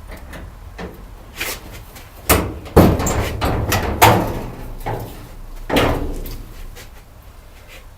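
A series of knocks and bangs, the loudest a little over a third of the way in and again near the two-thirds mark, some followed by a short rattling rumble.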